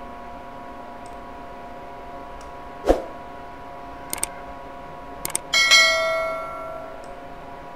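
Subscribe-button animation sound effect: a soft thump, a few mouse clicks, then a notification-bell chime that rings out and fades over about a second and a half.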